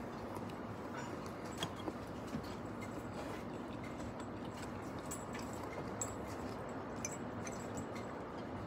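Steady background noise of a small bar with scattered light clicks and clinks, likely from dishes and utensils.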